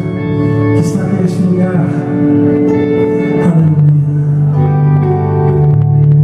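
Live contemporary gospel worship music: electric guitar over sustained keyboard chords, with a man singing lead into a microphone.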